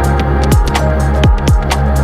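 Background music: electronic track with a steady kick-drum beat, deep sustained bass and ticking hi-hats.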